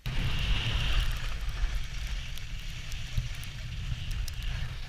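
Wind buffeting the microphone of a camera moving downhill on skis, a steady low rumble, with the hiss and scrape of skis sliding on hard-packed snow.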